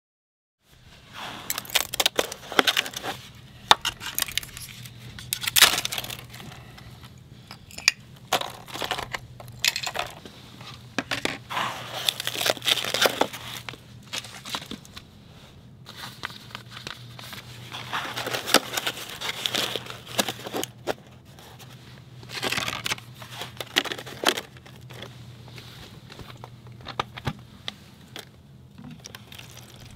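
Plastic being handled and crinkled, in irregular crackling bursts that come and go, over a faint steady low hum.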